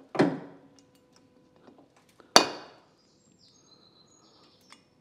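Sheet-metal body panel of an MGA's rear end giving metallic clanks as a hydraulic spreader pushes it open under load. There are two clanks: the first comes just after the start, and the second, about two seconds later, is the sharper and louder, with a brief ring. Faint high squeaks follow.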